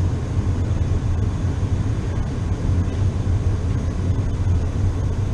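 Burner of a large old warehouse heating unit running at full fire: a steady low rumble of flame and fan.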